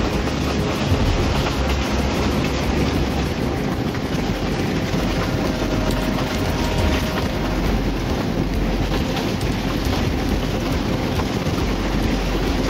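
El Gran Capitán passenger train running on the track: a steady rumble and rattle of the moving cars with faint wheel clicks.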